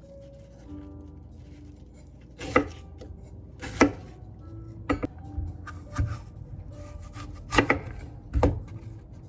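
Knife chopping on a cutting board: about six sharp strikes at uneven intervals, with soft background music under them.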